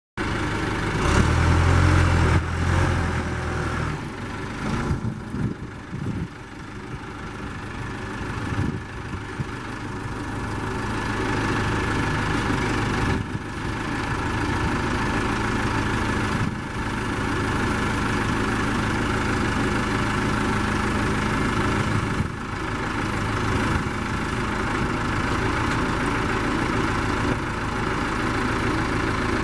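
1988 John Deere 310C loader backhoe's diesel engine running, louder and deeper for a few seconds near the start, then idling steadily.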